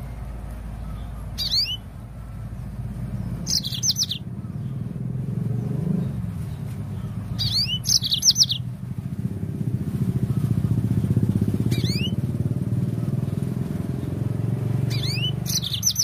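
Yellow-fronted canary giving five short chirping phrases, each a quick run of sweeping high notes, a few seconds apart. Under it runs a steady low engine hum that grows louder about halfway through.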